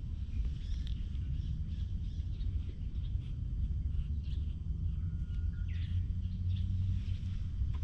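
Outdoor ambience: a steady low rumble with small birds chirping faintly now and then.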